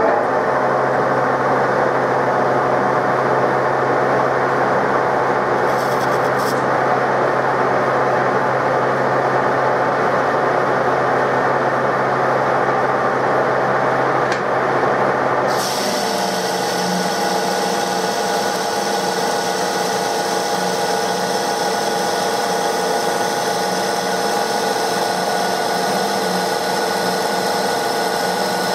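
TOS SN63B lathe taking a heavy roughing cut on a metal wheel hub with a carbide insert, at 500 rpm and 0.22 mm per revolution: the spindle and gearbox hum under the steady scraping of the cut. About halfway through, the sound changes abruptly to a brighter, steadier machine whine with several high tones.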